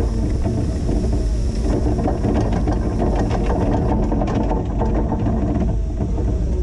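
Linde H20 EVO forklift's engine running steadily while pushing snow, with a rapid rattling clatter in the middle.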